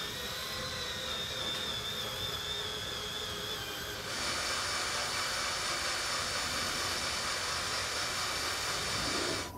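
Cordless drill boring holes into the steel frame, a steady motor whine. About four seconds in it turns louder and brighter and holds steady, then stops abruptly just before the end.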